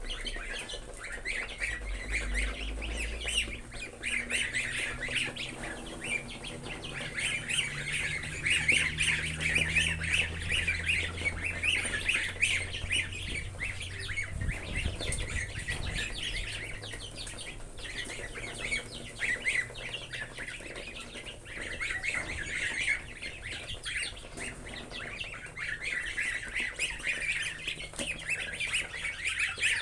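A crowd of goslings peeping without pause, many short high calls overlapping.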